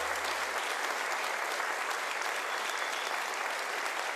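Studio audience applauding steadily. A low held note from the band dies away about half a second in.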